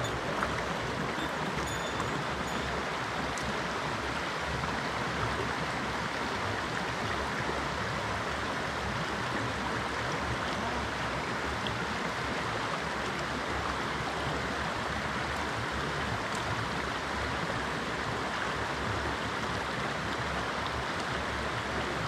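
Shallow mountain stream flowing over rocks and stones: a steady, even rush of running water.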